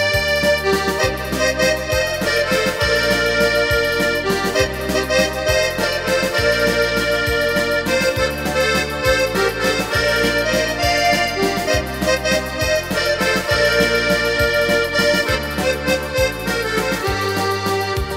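Instrumental break of a Ukrainian wedding dance song played live by a band: an accordion carries the melody over a steady, evenly stepping bass beat, with no singing.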